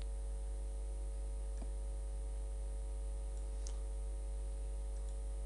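Steady low electrical hum of the recording setup, with two faint computer mouse clicks, one about a second and a half in and one near four seconds.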